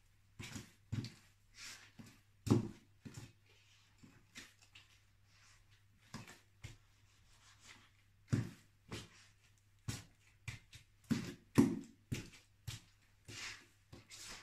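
Block-heeled suede boots stepping on and grinding crushed kiwi fruit on a hard laminate floor: irregular heel thuds and taps, with short wet squishes of the fruit pulp, one or two steps a second.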